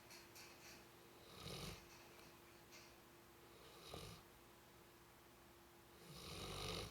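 A sleeping pet snoring softly: three separate snores, the last one longer and the loudest, over a faint steady hum.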